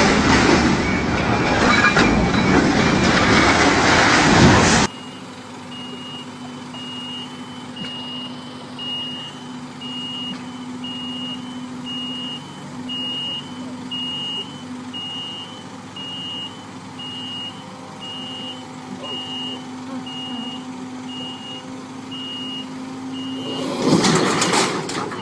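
A loud, even noise that cuts off suddenly about five seconds in. After it, a vehicle's reversing alarm beeps steadily, a little more than once a second, over a low engine hum. There is another loud burst near the end.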